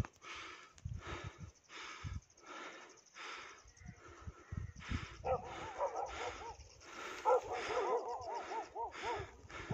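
Quick, even panting of a person climbing a steep snow slope on foot, a breath about every half second. From about halfway a wavering, whistle-like tone rides over the breaths.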